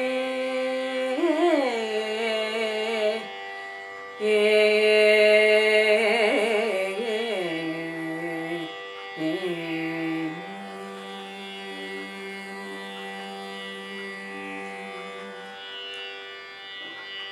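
A woman singing the closing phrases of a Carnatic song in raga Abhogi, long held notes shaken with wavering ornaments over a steady drone. The singing eases off about ten seconds in, leaving a quieter held note and drone that stop abruptly at the end.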